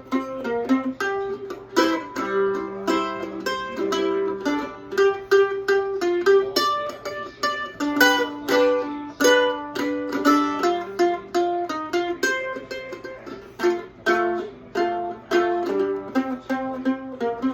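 Mandolin playing a blues tune in the key of C: a continuous run of plucked notes.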